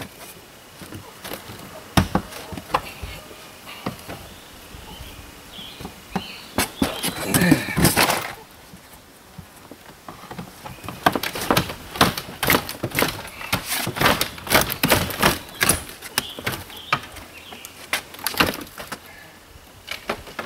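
Knocks, thuds and rattles of an old camper's entry door being worked loose from its frame and taken off. A louder, longer noisy stretch comes about seven seconds in, and a dense run of rapid knocks fills the second half.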